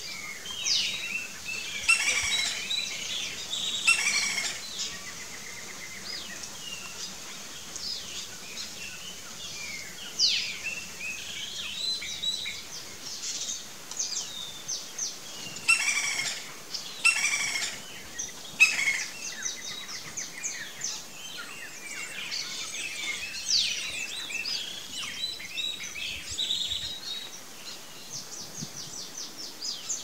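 Many birds calling and singing at once, a dense mix of short whistled and sliding notes, with a few louder sharp notes standing out: two near the start and three more around the middle.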